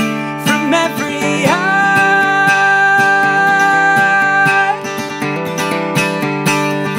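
Acoustic guitar strumming chords while a male voice slides up into one long held wordless note about a second and a half in, holding it for about three seconds; the guitar carries on alone after it stops.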